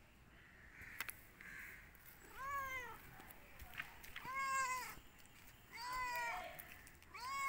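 Domestic cat meowing: three drawn-out meows about a second and a half apart, each rising then falling in pitch, with a fourth beginning near the end.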